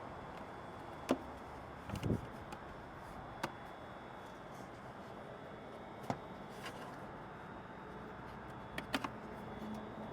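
Scattered light clicks and knocks of a rubber tube seal and plastic airbox being handled and fitted together, over a steady faint hiss. A duller thump comes about two seconds in.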